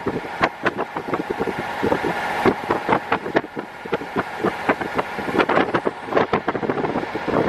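JR East KiHa 48 diesel railcar under way, its diesel engine running, heard through an open window with wind noise and many irregular clicks and knocks.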